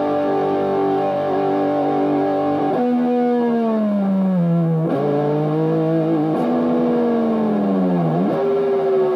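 2001 Made-in-Japan Greco WS-STD Strat-style electric guitar through a lightly distorted amp: a held chord, then twice the whole chord sinks slowly in pitch and jumps back up, as when the tremolo arm is pushed down. A held note with wavering vibrato comes in near the end.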